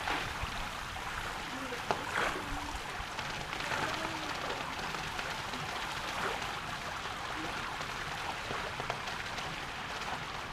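Swimming pool water lapping and trickling at the edges, a steady rushing noise.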